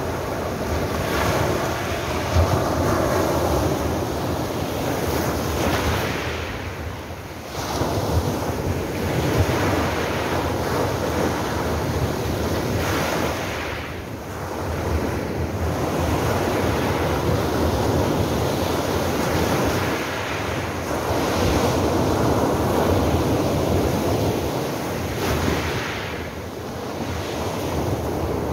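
Small sea waves breaking on a pebble beach and washing up over the stones. The surf swells and eases, dipping briefly about three times.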